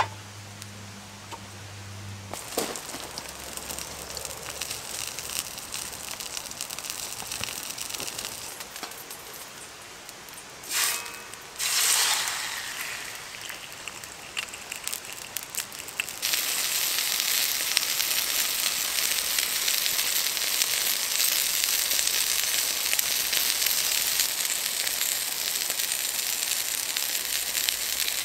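Sirloin steak sizzling in a frying pan over a wood campfire. The fire crackles quietly at first, two short loud hisses come a little after the middle, and about two-thirds of the way through the sizzle turns loud and steady.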